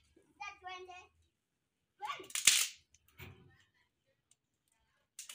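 Sharp crack of a dry stick being snapped by hand for firewood, about two and a half seconds in, with a brief child's voice shortly after the start.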